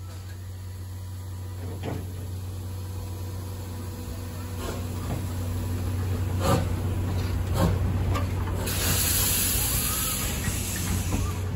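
Steam hissing out low down by the wheels of C11 123, a 1947 Hitachi-built C11 tank steam locomotive. The hiss starts about two-thirds of the way in, lasts a couple of seconds and is the loudest sound. Before it there is a steady low hum and a few scattered knocks from the engine.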